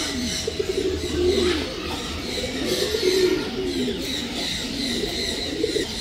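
Several domestic pigeons cooing, low calls that rise and fall, overlapping one after another.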